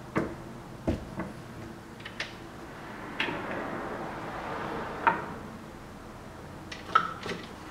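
Metal clicks and knocks from reloading press parts being handled, with a sliding scrape between about three and five seconds in.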